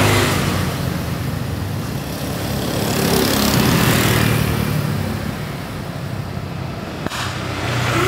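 Road traffic: engines of passing vehicles, one fading out early on and another swelling and passing about three to four seconds in.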